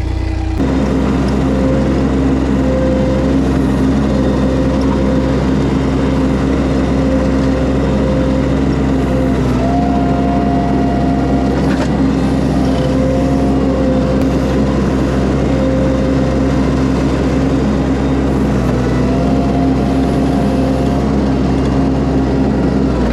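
Mini skid steer's engine running steadily under throttle as it works, with a higher hydraulic-type whine that comes and goes several times.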